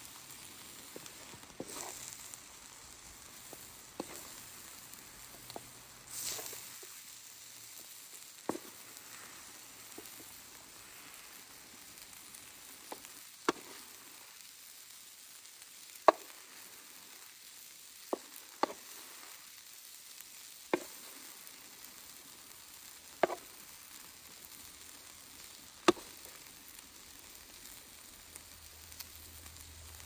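Diced meat and tomatoes sizzling in a black steel pan over a campfire. A wooden spoon scoops the food out, knocking sharply against the pan about ten times, a few seconds apart.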